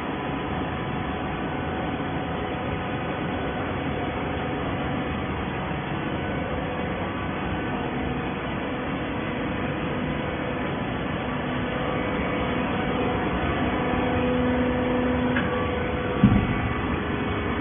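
Plastic-bottle baling machine running steadily with a mechanical hum, one tone swelling for a few seconds before a single knock near the end.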